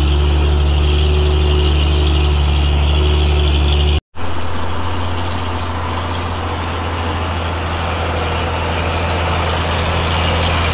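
A motor running steadily with a low, even hum. It cuts out abruptly for a moment about four seconds in, then a steady hum at a slightly different pitch carries on.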